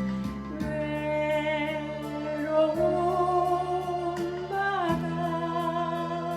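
Alto saxophone playing the slow melody of a Korean ballad, long held notes with vibrato, over a recorded backing track with a steady beat.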